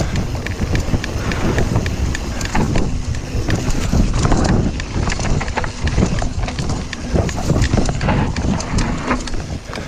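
YT Industries Jeffsy mountain bike ridden over a bumpy woodland dirt trail: tyres rumbling over the ground with dense, irregular rattling and clicking from the bike.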